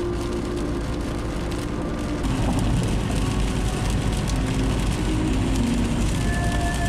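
Car road noise heard from inside a moving car on a wet highway: a steady low rumble with tyres hissing on the wet road. It gets louder about two seconds in.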